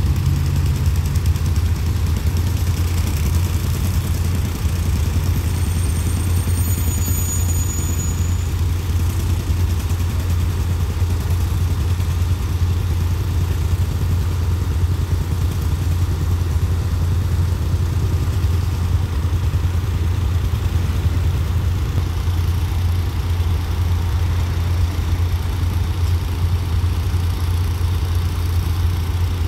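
Diesel engines of parked track-maintenance machines idling: a steady low drone that does not change.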